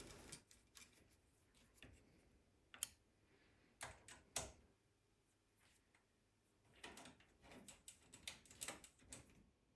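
Faint, scattered small clicks and ticks of a hex key seating in and turning the M3 bolts that fix a linear rail to an aluminium extrusion, with a denser run of clicks near the end.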